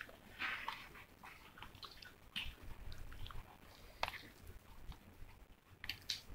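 Faint chewing of noodles, with a few short clicks of a metal fork and spoon against the noodle cup.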